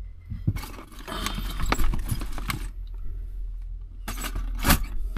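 Rummaging through plastic storage bins and bags: items rustling and clattering in short irregular spells, with a sharp knock near the end, over a steady low hum.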